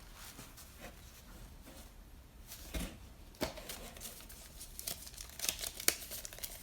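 Wallet and papers being handled: scattered rustling of paper and a few small clicks.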